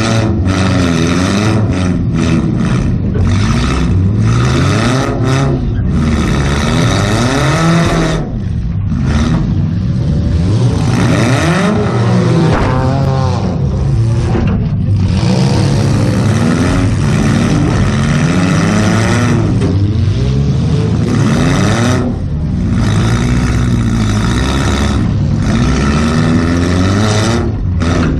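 Stripped demolition derby car's engine, heard from inside the cabin, revving up and down over and over as the car is driven hard, loud throughout.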